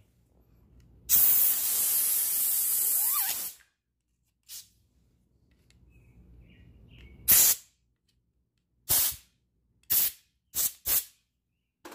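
Compressed-air blow gun blasting a chainsaw guide bar. It gives one long hiss of about two and a half seconds, then a string of short blasts, clearing packed sawdust, wood fibre and old bar oil out of the bar's groove and oil hole.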